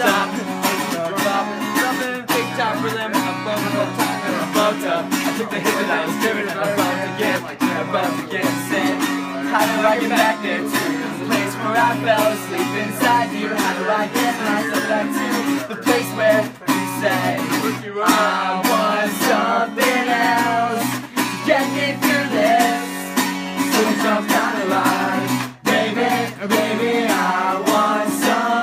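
A guitar strummed live with a group of people singing along to it, the voices louder in the second half.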